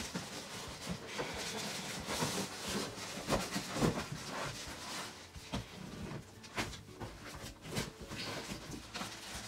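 Cardboard boxes scraping and rustling with irregular knocks as a boxed stand mixer is pulled out of its shipping carton and unpacked, plastic wrapping crinkling.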